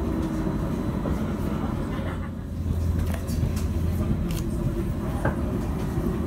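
Edinburgh tram (CAF Urbos 3) running along street track, heard from inside the car: a steady low rumble and hum that grows louder about two and a half seconds in.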